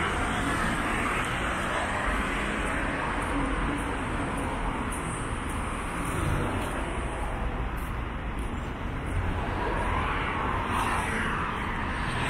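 Road traffic on a city street: a steady hum of engines and tyres, with cars passing that swell and fade, one near the end.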